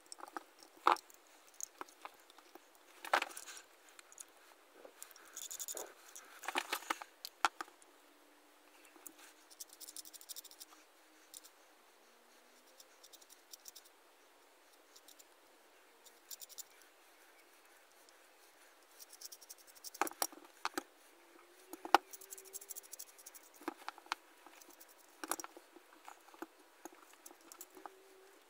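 Handling noises of a metal hand drill being taken apart: scattered sharp clicks, taps and light scraping as the gear housing is opened and its parts are moved, with quiet stretches between.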